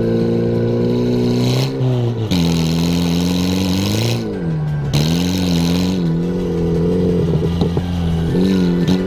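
Car engine revving, its pitch dipping and climbing again several times as the throttle is worked.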